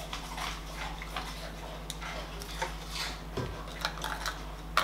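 Liquid jelly mixture pouring from a glass measuring jug into small plastic shot cups, with scattered light taps of a spoon against the glass.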